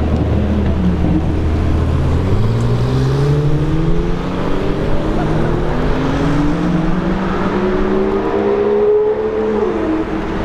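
Supercar engine idling, then pulling away with the revs rising slowly and steadily for about seven seconds. The pitch drops suddenly near the end as the driver lifts off or changes gear.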